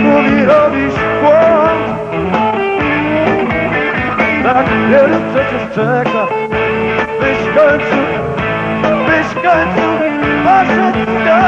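Live blues-rock band playing an instrumental passage: an electric guitar lead with bent, sustained notes over bass and drums.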